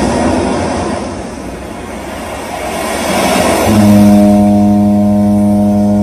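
Show soundtrack over loudspeakers: a rushing, swelling noise, then, about two-thirds of the way in, a loud sustained low note entering and held steady.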